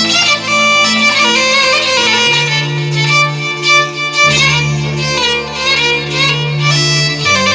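Instrumental interlude of Arabic mawwal accompaniment: a wavering violin-like lead melody over held bass notes that change a few times.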